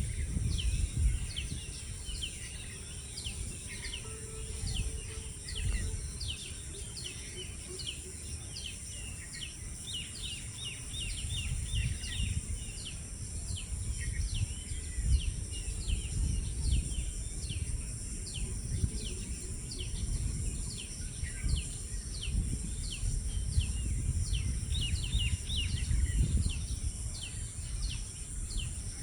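Birds chirping: a long run of short, quick, high chirps, several a second, with a steady high hiss and a low rumble underneath.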